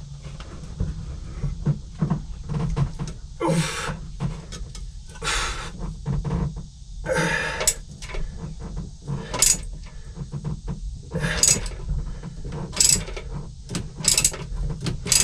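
Half-inch drive ratchet working a 9/16-inch bolt deep in a boat engine bay: a short run of ratchet clicking on each return stroke, about every two seconds, with scattered small knocks of the tool against metal in between.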